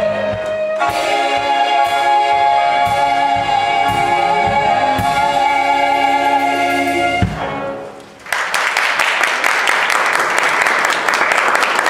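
A stage-musical number, the cast singing with the band, ends on a long held final chord that cuts off about seven seconds in. A second later an audience breaks into applause.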